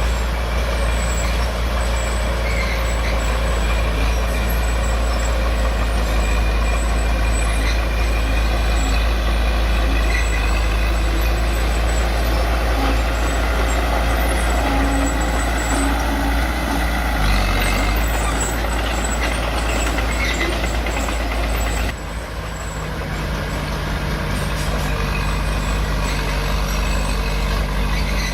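Heavy diesel engine of earthmoving machinery running steadily. About 22 seconds in, the level dips briefly and the engine settles into a different steady note.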